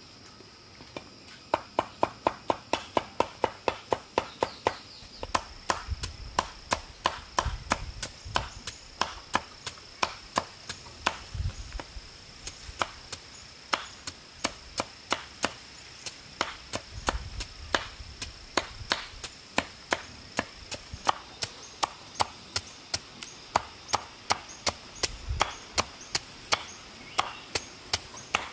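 Rapid, repeated chopping blows with a blade, about five strokes a second at first, then less even, over a steady high buzz of insects.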